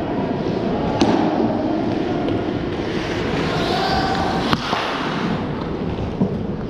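Ice hockey play in a rink: a steady wash of rink noise broken by two sharp cracks of stick and puck, about a second in and again about four and a half seconds in.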